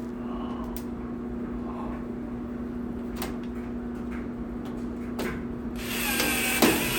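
Light scattered clicks of screws and sheet metal being handled. Near the end comes a louder burst of about a second as a 1/4-inch screw is driven into the dryer's sheet-metal panel, ending in a sharp click.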